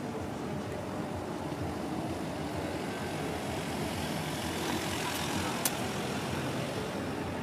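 A van driving slowly past close by, its engine and tyre noise growing louder as it nears, with a single sharp click about five and a half seconds in.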